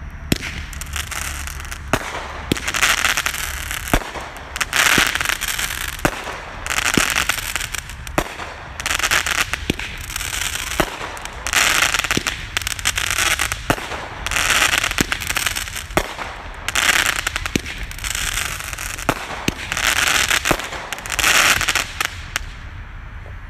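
Red Rhino 'Coco Loco' fireworks cake firing shot after shot: sharp pops of the launches, each followed by a burst of crackling stars, about a dozen over twenty seconds. It stops near the end.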